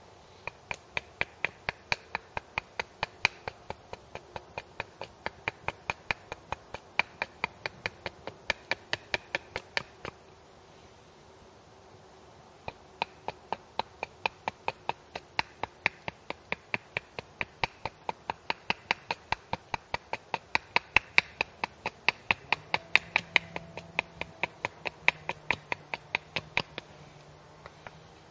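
Short-handled axe chopping at a piece of wood on a chopping stump, shaping a wooden splitting wedge: a quick, regular run of sharp strokes, about three a second. They pause for a couple of seconds about ten seconds in, then carry on.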